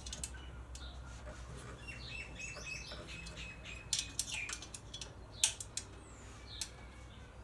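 Light metallic clicks and taps of a small Allen key turning the bolts of an oil cooler guard on a Suzuki DR650, a few sharp ones around the middle, with a few bird chirps and a low steady hum in the background.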